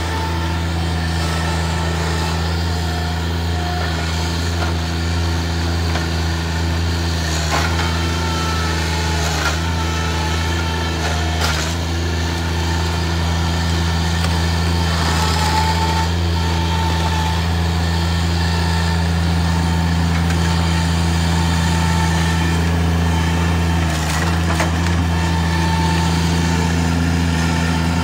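Bobcat MT100 mini track loader's diesel engine running steadily, with a higher whine that comes and goes as the loader works. A few sharp knocks of debris are heard along the way.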